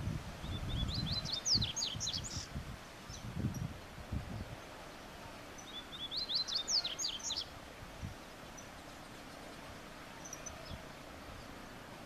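Yellow-bellied seedeater (coleiro baiano) singing two short phrases about five seconds apart, each a quick run of high, sharp notes. Low rustling thumps sound under the first half.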